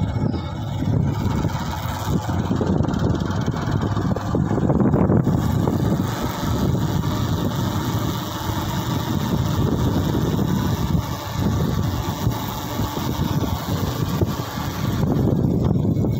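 Vehicle engine running steadily while travelling along a rough road, mixed with a low, fluctuating rumble of road and wind noise.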